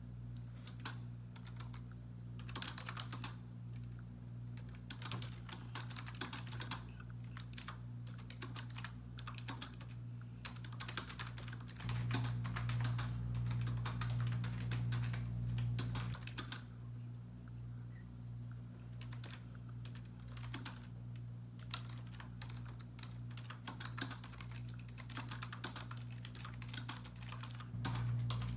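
Typing on a computer keyboard: irregular runs of key clicks with short pauses. Beneath it is a steady low hum that grows louder for about four seconds midway and again near the end.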